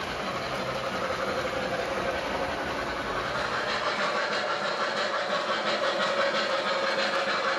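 Model steam locomotive running on layout track: its onboard electronic steam sounds mixed with the wheels clicking over the rails. The sound changes character about four seconds in.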